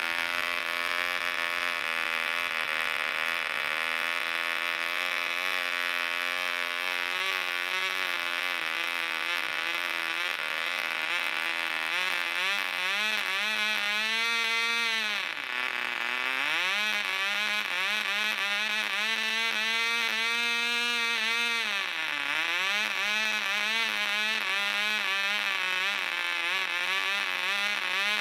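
Cox .049 Black Widow two-stroke glow engine running at high speed with a high, steady buzz. About halfway through, its pitch starts to waver and twice sags sharply and climbs back as the needle valve is turned: the mixture being set, with a little hunting at top speed.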